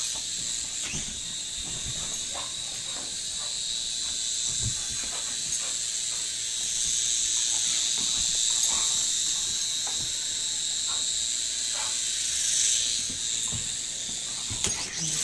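Small remote-control toy helicopter flying, its electric motor and spinning rotors making a steady high-pitched whine that wavers slightly in pitch, with a few light knocks along the way. The whine cuts off at the very end.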